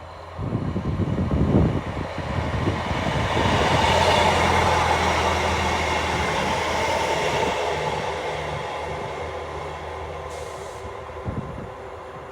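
A train passing through the station, building to its loudest about four seconds in and then slowly fading away. A low, steady engine note runs under the rush of wheels and air.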